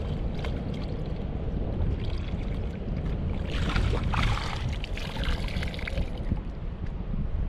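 Water splashing and sloshing as a hand and feet stir sand in shallow seawater, louder from about halfway through. Wind rumbles on the microphone.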